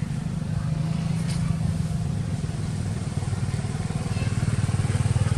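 A small engine running steadily with a fast, even firing beat, growing louder and deeper in pitch toward the end.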